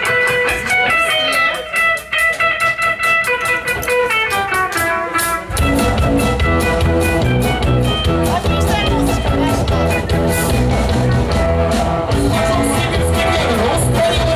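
Live band: a guitar plays a picked melody over steady drum strokes. About five and a half seconds in, the bass and full band come in.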